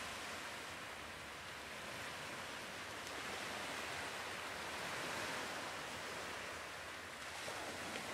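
Recorded ocean surf playing as a background ambience track: a steady wash of waves that slowly swells and eases.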